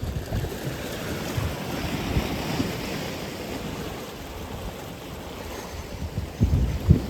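Atlantic Ocean surf: a wave breaks and washes in, its hiss swelling and fading over the first few seconds. Low rumbling gusts of wind on the microphone, loudest near the end.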